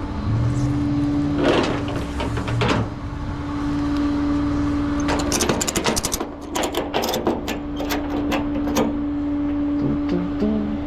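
A vehicle engine running with a steady hum, with a quick run of metallic clicks and clanks for a few seconds in the middle.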